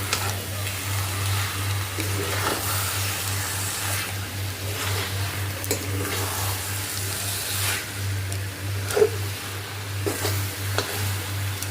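A spoon stirring and scraping a pan of halwa mixture wet with milk and melting jaggery, with sizzling and several sharp knocks of the spoon against the pan, the loudest about nine seconds in. A steady low hum runs underneath.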